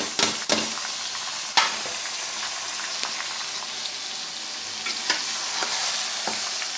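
Chicken pieces and freshly added chopped tomatoes sizzling in hot oil in a metal pot, with a metal spoon clicking and scraping against the pot as it is stirred. The sharpest clicks come in the first couple of seconds, and a few lighter ones come near the end.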